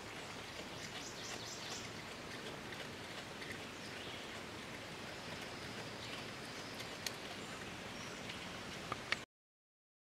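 Faint chewing of a Virginia opossum eating from a bowl: small crackles and a few sharp clicks over a steady hiss. It cuts off abruptly about nine seconds in.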